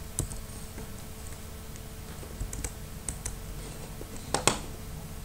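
A few scattered clicks of a computer keyboard, the loudest near the end, over a faint steady hum.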